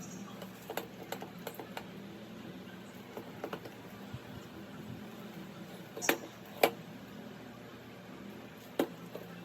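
Metal tools and engine parts clinking and tapping against each other during engine assembly: scattered light clicks, with two sharp metallic clinks about six seconds in and another near the end, over a steady low hum.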